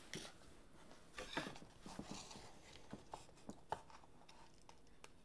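Faint sounds of children eating instant noodles: soft chewing and slurping, with scattered light clicks of a plastic fork and spoon against paper noodle cups.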